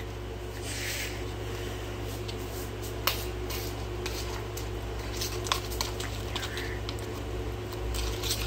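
Handling noises as slime and a clear plastic cup are worked by hand: a few sharp clicks and light taps, one about three seconds in and more from five seconds on, over a steady low hum.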